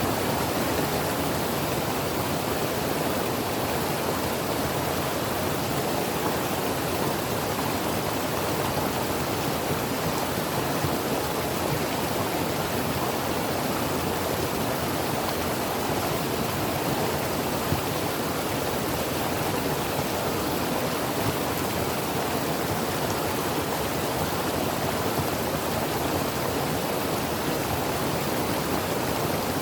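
A creek running over rocks: a steady, even rush of flowing water.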